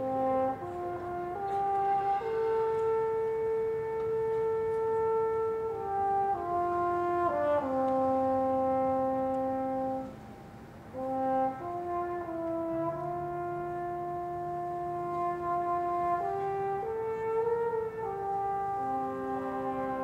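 Marching band brass playing slow, sustained chords that change every second or two, with a brief hush about ten seconds in before the chords resume.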